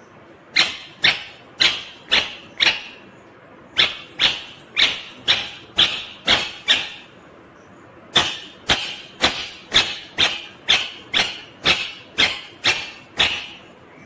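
Rose-ringed parakeet giving loud, harsh screeching calls, about two a second, in three runs separated by short pauses; the last run is the longest.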